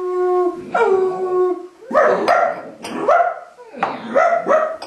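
Barking and howling in a dog's manner: two long, slightly falling whining howls, then a quick run of about eight short yelping barks.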